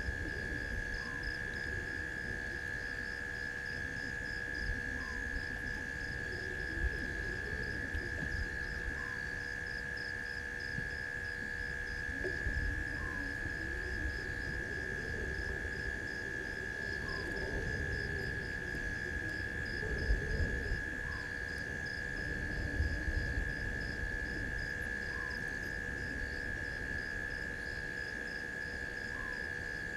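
Night chorus of insects: a steady high drone and a fast pulsing cricket trill, with a short call repeating about every four seconds. Under it runs an uneven low rumble that swells around the middle.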